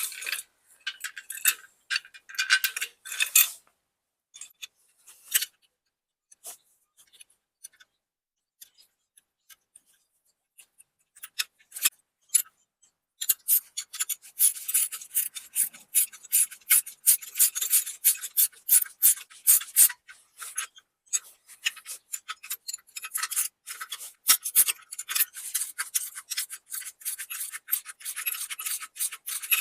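Hand tools working on bolts: scattered short metallic scrapes, then from about halfway in, a run of rapid rasping, clicking strokes like a ratchet being worked back and forth.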